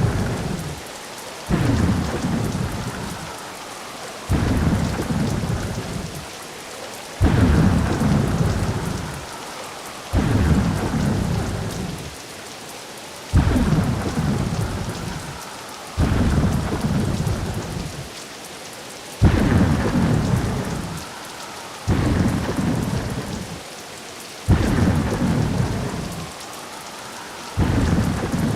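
Ocean waves breaking on a shore in a tropical-island ambience recording: a deep rumbling surge about every three seconds, each starting suddenly and fading out, over a steady hiss of surf.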